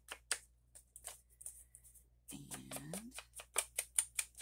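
Ink pad being rubbed in quick repeated strokes along the edges of paper, a scratchy swish about four or five times a second. The strokes pause for about a second in the middle, and a brief voice-like hum comes just past halfway.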